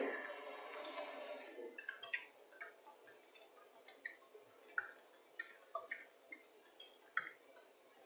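Typing on a computer keyboard: faint, irregular key clicks, starting about two seconds in and running at an even typing pace.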